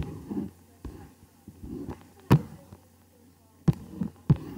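A few sharp single clicks of a computer mouse, the loudest about two seconds in, over a faint steady electrical hum.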